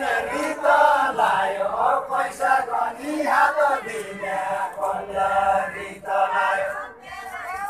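Men's voices singing a Deuda folk song together, a chant-like line held in long drawn-out notes with short breaks.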